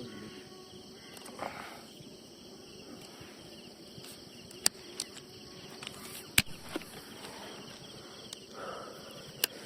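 Insects chirring steadily in the background, with three sharp clicks or knocks about halfway through, a little later, and near the end.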